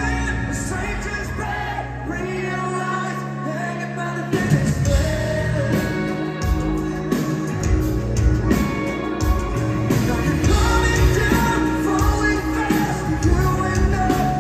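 Live rock band playing with a male singer, heard from the audience in a large hall. The bass drops out about two seconds in, and the full band with drums comes back in about two seconds later, louder.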